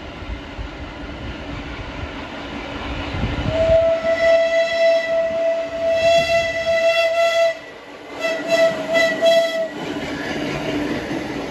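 Vintage subway train's horn sounding one long single-pitched blast of about four seconds, then a quick run of about four short toots, as the train approaches; the rumble and clatter of the cars on the rails grows near the end.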